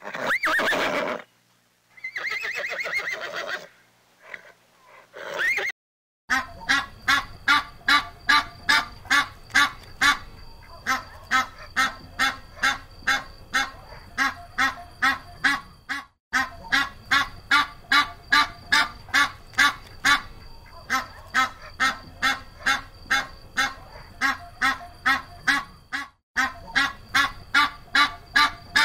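A horse whinnies twice in the first few seconds. Then a domestic goose honks over and over, about two short honks a second, with two brief breaks.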